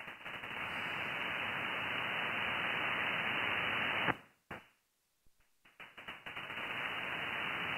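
Icom IC-7610 receiver hiss on 20 m single sideband: steady band noise with no signal, cut off above about 3 kHz by the radio's filter. The hiss stops for about a second and a half past the middle, then comes back.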